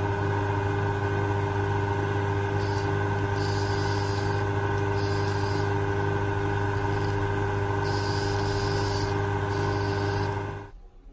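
Jewelry lathe's electric motor running with a steady hum while a cutting tool turns a concave radius into a gold ring held in a brass collet. From about two and a half seconds in, a high hiss from the cut comes and goes in about five passes. Everything cuts off near the end.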